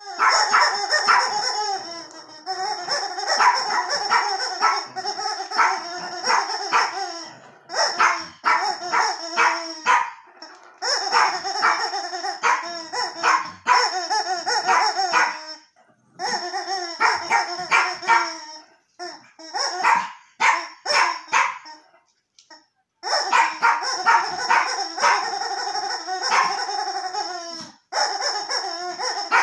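Rubber screaming-chicken squeeze toy squawking again and again as it is squeezed: long, raspy, high-pitched screeches a few seconds each, with short breaks between squeezes.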